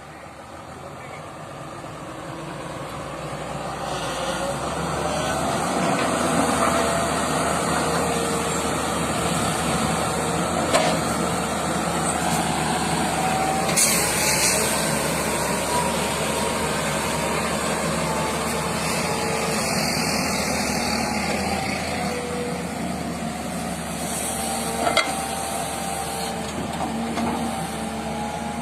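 Heavy diesel machine, likely an excavator, running and working. It grows louder over the first several seconds, then holds steady, with a whining tone that drifts up and down and a few short knocks.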